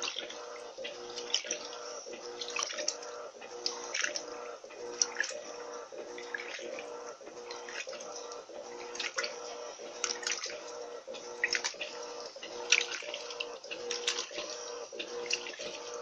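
Electrolux Turbo LT12B 12 kg top-load washing machine agitating a load of laundry in a full drum of water: water sloshing with irregular splashes over a steady motor hum.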